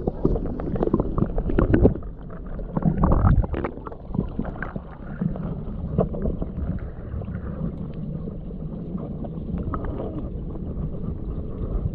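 Underwater sound picked up by an action camera held below the surface: a muffled low rumble of water moving against the camera housing, peppered with small crackling clicks. It swells louder twice, about two and three seconds in.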